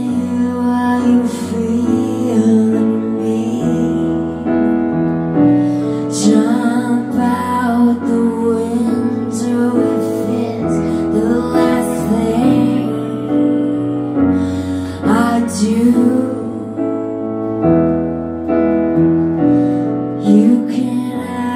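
Live band music: a woman singing over sustained Mellotron keyboard chords that change every couple of seconds.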